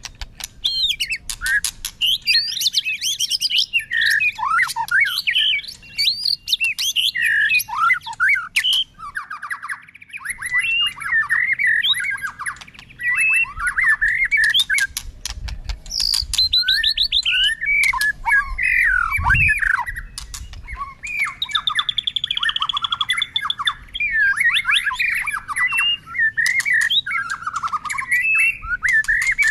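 White-rumped shama singing a long, unbroken string of varied phrases: sliding whistles, fast trills and bursts of rapid clicking notes, switching from one phrase to the next with hardly a pause. One soft low thump about two-thirds of the way through.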